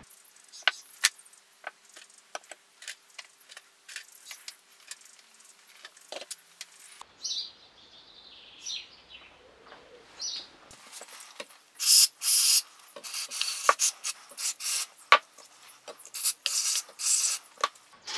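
Small metal carburettor parts clicking and tapping as they are handled and set down on the bench, with a few squeaks around the middle. In the second half, short hissing bursts of an aerosol cleaner sprayed through the carburettor parts.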